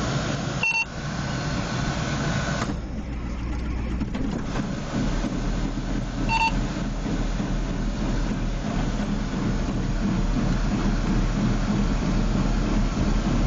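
Cold start of a John Deere 8440's turbocharged six-cylinder diesel: the engine turns over and catches, then settles about five seconds in into a steady, deep running note. A short electronic beep sounds near the start and again about six seconds in.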